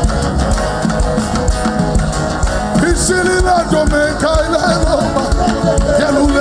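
Live worship band music with drums and guitar keeping a steady beat; a wavering sung or lead melody line comes in about three seconds in.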